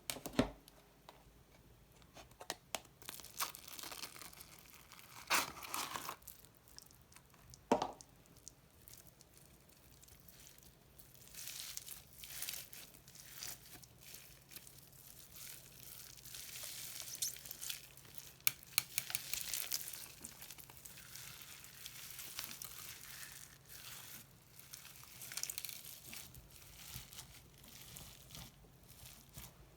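Slime being mixed and stretched by hand, making sticky crackling and tearing sounds. There are sharp pops and clicks over the first several seconds, then longer stretches of crackling in uneven bursts.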